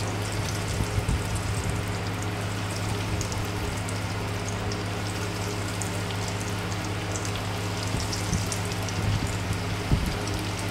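Hot oil sizzling and crackling steadily as breaded macaroni chicken balls deep-fry in a pan, with a steady low hum underneath.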